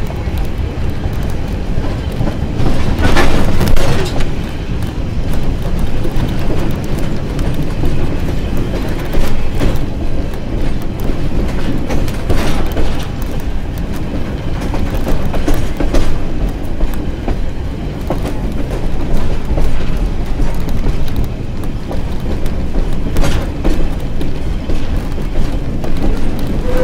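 Railroad passenger car rolling along the track, giving a steady low rumble with wheel-and-rail clatter and a few louder knocks.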